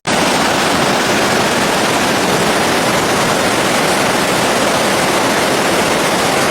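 Loud, steady rushing of water in a storm flood, an even hiss without breaks that starts abruptly.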